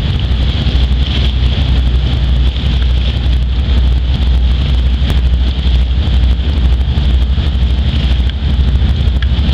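Fishing boats motoring past, their engine drone mixed with wind buffeting the microphone as a steady low rumble.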